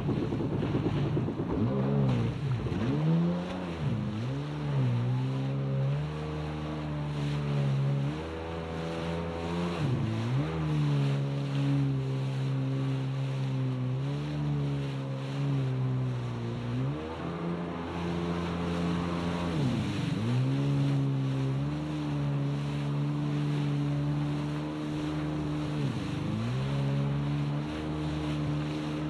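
Jet ski engine running at moderate throttle. Its pitch dips and climbs back several times as the throttle is eased off and reapplied. Water splashes off the hull and wind blows on the microphone.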